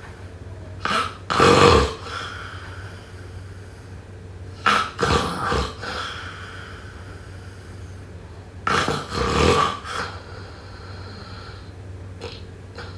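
A person snoring loudly, three big snores about four seconds apart, each a short catch followed by a longer rattling breath, with a fainter snort near the end.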